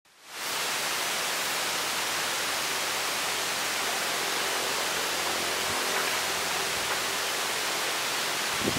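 Steady hiss, fading in over the first half second, with no clear calls from the chickens; a few soft short sounds begin near the end.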